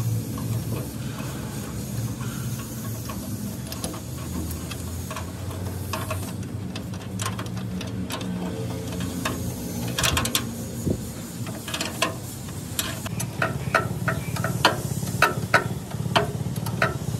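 Tractor engine running steadily at idle. In the second half come a series of sharp metallic knocks, about two a second.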